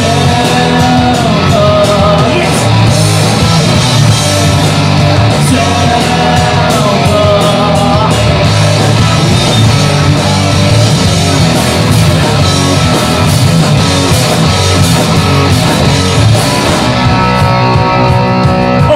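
A live rock band playing loud: drums, bass and guitars, with a man singing into a microphone over them.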